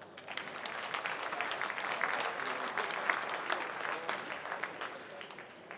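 Audience applause for a won point, made of many hand claps, swelling over the first two seconds and dying away toward the end.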